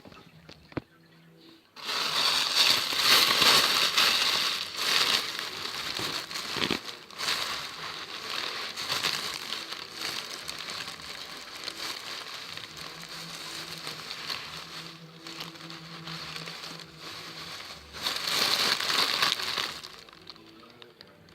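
Crinkling and rustling of something being handled, a dense crackle made of many small clicks. It is loudest for the first few seconds after it starts and again briefly near the end.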